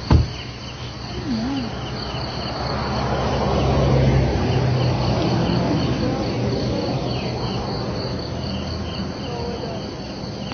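Steady, finely pulsing high-pitched chirring of insects, with a sharp click just after the start and a low rumbling noise that swells in the middle and then fades.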